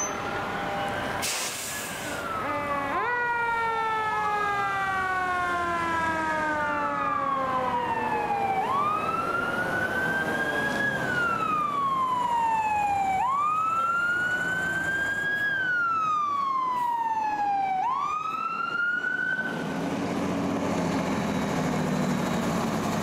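Fire apparatus siren on a wail, rising and falling in slow sweeps about four and a half seconds apart, with a second siren overlapping it for the first few seconds. Near the end the siren stops and a fire truck's engine is heard running as it pulls up.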